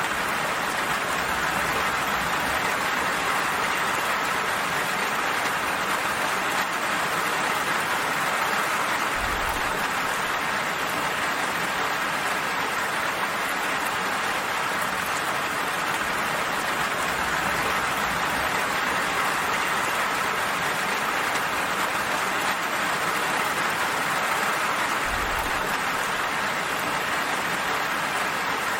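Gentle rain falling steadily.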